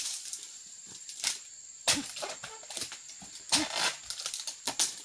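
Oil palm fronds being cut off with a long-handled pruning blade: a run of about five sharp chopping strikes. A longer rustling crash of cut frond comes a little past the middle.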